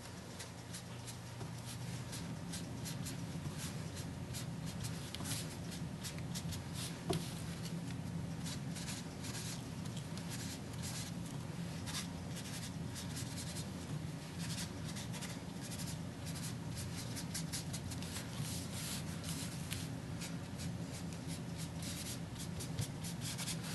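Stamping sponge dabbing and rubbing ink onto cardstock in quick strokes: a dense run of soft scratchy taps.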